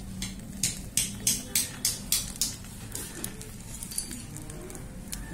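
Steel spoon clinking against a small steel pot as powdered jaggery is tipped in: about eight sharp taps at roughly three a second, then a few lighter ones.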